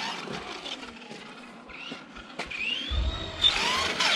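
Brushed electric motor of a Kyosho Mad Van RC van whining, quieter at first, then rising in pitch as it is throttled up about three seconds in, with a low rumble joining it.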